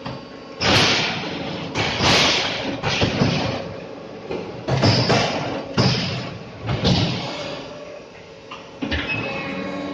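Neptune 200-ton hydraulic fly ash brick machine running its pressing cycle: a series of loud clanks and thuds about a second apart, each with a rushing, noisy tail, as the press and mould work and the pallet of fresh bricks slides out.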